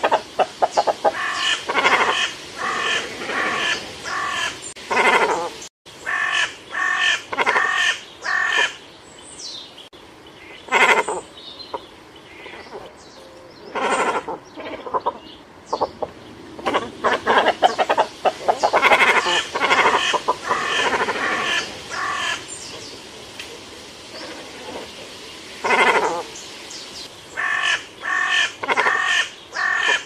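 Cormorants calling: short harsh calls in quick runs of four to six notes, the runs coming again every few seconds, with fainter calls between.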